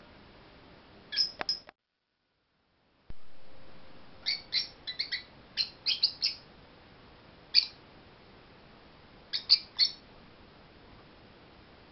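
Pet lovebirds chirping: short, sharp chirps in scattered bursts of a few at a time. A stretch of dead silence falls between about two and three seconds in.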